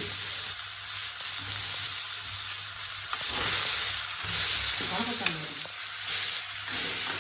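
Leafy greens sizzling as they are stir-fried in hot oil in a kadai with shallots and tomatoes, stirred now and then. A steady frying hiss runs throughout, with a few faint clicks.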